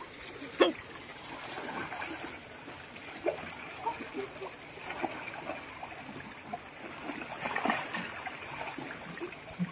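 Pool water splashing and trickling as a group of birds swims and dives, with a sharper splash shortly after the start and smaller splashes scattered through.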